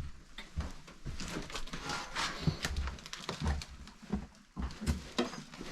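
Irregular thumps, knocks and rustling: people moving about and handling objects.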